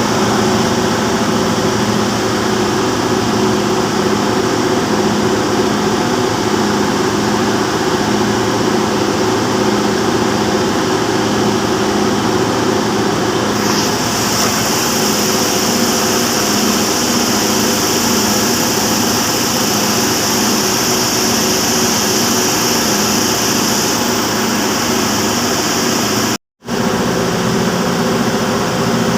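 Waukesha gas engine driving an Ariel reciprocating gas compressor, running with a loud, steady drone. About halfway through a high hiss joins in and stops about ten seconds later, and the sound breaks off for a split second near the end.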